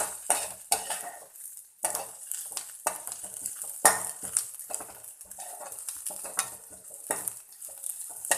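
Onion and curry leaves sizzling in hot oil in a kadai while a spatula stirs them, scraping and knocking against the pan at an irregular pace over a steady high hiss of frying.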